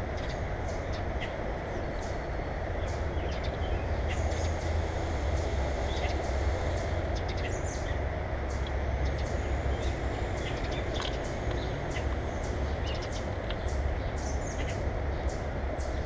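Grackles pecking at peanuts and seed on a wire-grate platform feeder close to the microphone: an irregular run of small sharp ticks and taps, with short high bird chirps among them. Under it, a steady low rumble.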